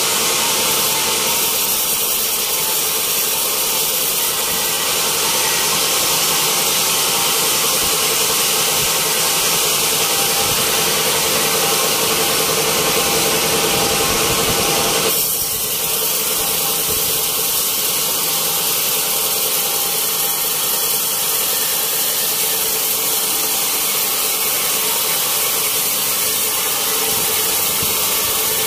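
Band sawmill blade sawing lengthwise through a wet teak log, a loud, steady noise of the running saw and the blade in the wood. The sound shifts abruptly about halfway through.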